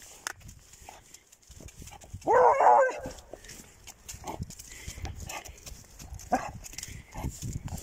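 A dog gives one drawn-out bark of under a second, about two seconds in, over soft walking footsteps on a wet pavement.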